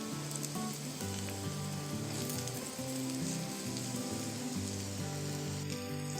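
Alu vadi slices (gram-flour-coated colocasia leaf rolls) shallow-frying in a little hot oil in a nonstick pan: a steady sizzle with small crackles. Soft background music plays under it.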